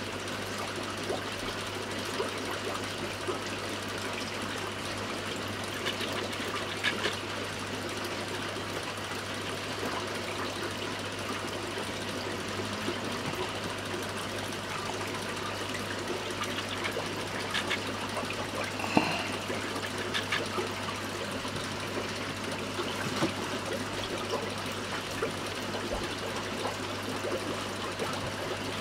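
Aquarium water trickling steadily over a low, even hum, with a few small clicks, one a little sharper about two-thirds of the way through.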